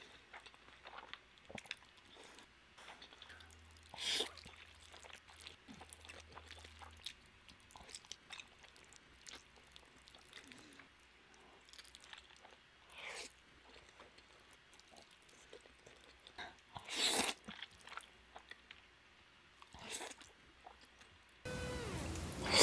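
Close-miked eating of black bean noodles (jjajangmyeon): soft chewing and mouth smacks with a few short, louder slurps of noodles. Near the end, background music comes in under a loud slurp.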